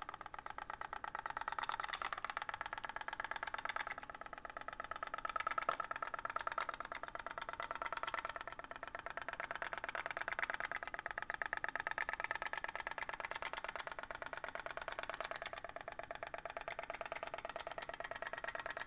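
3D-printed pop-pop (putt-putt) boat running: its candle-heated boiler, handmade from a soda can, puts out a fast, even ticking many times a second as steam pulses push water out the rear.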